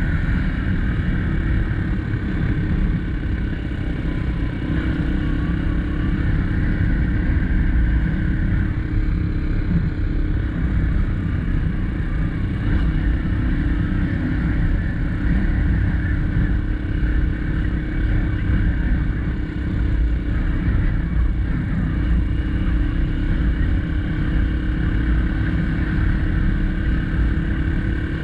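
2021 SSR XF250 250cc dirt bike's engine running at a fairly steady pitch while riding, under a heavy low rumble.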